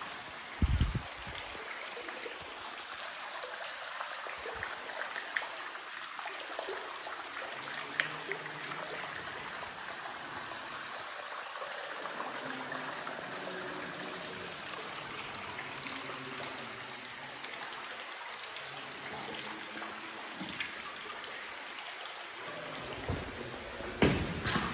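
Water trickling and dripping steadily in a wet cave, with a few sharp knocks about a second in and again near the end.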